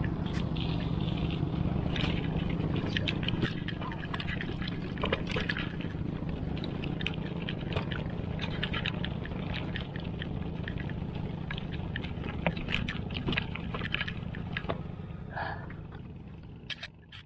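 Bicycle riding over a rough dirt trail, with many scattered clicks and rattles from the bike and the ground over a steady low hum, fading out near the end.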